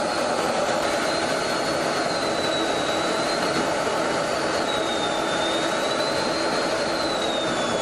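Steady military aircraft engine noise from a formation flight, with a thin high whine that drifts slowly up and down in pitch.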